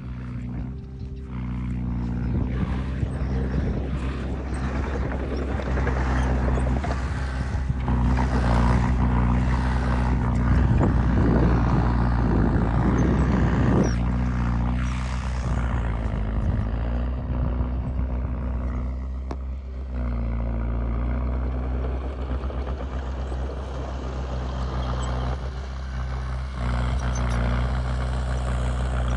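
Heavy diesel engine running steadily, growing louder and rougher for several seconds in the middle, then easing off about twenty seconds in.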